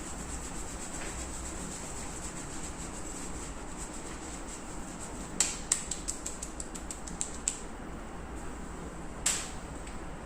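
Steady background hiss, with a quick run of light clicks and taps about halfway through and one short noisy burst near the end.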